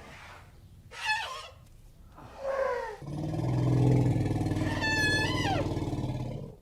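Columbian mammoth sound effect: two short calls that fall in pitch, then a long, loud, low rumble with a high call over it that bends downward. The rumble cuts off suddenly near the end.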